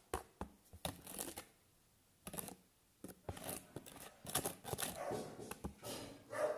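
Hands handling slime-making materials: scattered clicks and rustling, with a short quiet gap about two seconds in and busier rustling near the end.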